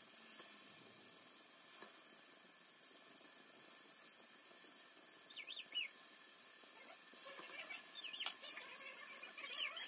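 Marinated chicken pieces sizzling in hot oil in a frying pan, a faint steady hiss, with a few light clicks as pieces are set down. From about five seconds in, faint chirping bird calls come through several times.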